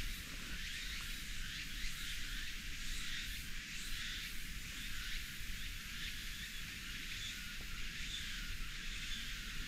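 A steady chorus of insects, a high buzzing hiss that flickers but never stops, over a faint low rumble.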